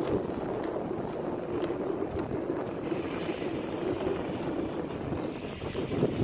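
Diesel engine of a rice harvesting machine running steadily, with wind buffeting the microphone.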